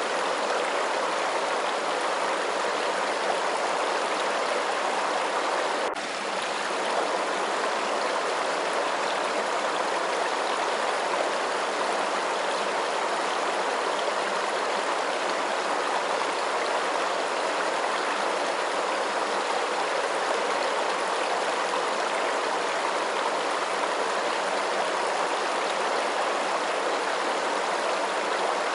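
Flowing stream water, a steady, unbroken rush and gurgle, with a faint click and a brief dip in level about six seconds in.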